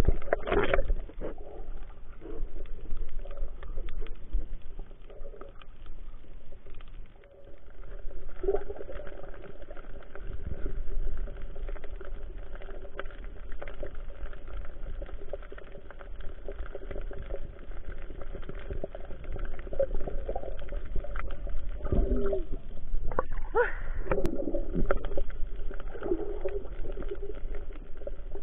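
Underwater sound picked up by a camera below the surface: a muffled wash of water with constant faint crackling, and a few louder rushing bursts near the end.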